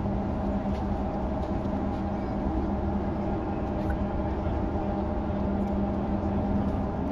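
A large ship's engines running steadily as the ferry manoeuvres to dock, a low rumble with a constant hum.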